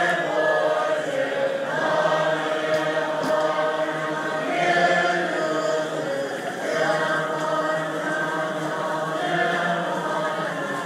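A large crowd of Tibetan Buddhist monks chanting together in unison, in long sustained phrases that swell and break about every two and a half seconds.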